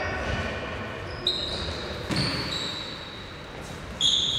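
Sports shoes squeaking sharply and repeatedly on a wooden sports-hall floor as futsal players turn and run, with a few thuds of the ball being kicked about a second in, about two seconds in, and near the end.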